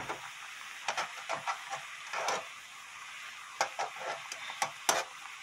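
Pot of water at a rolling boil with somyeon noodles in it, a steady hiss, with scattered light clicks and taps as the noodles are stirred in the pot.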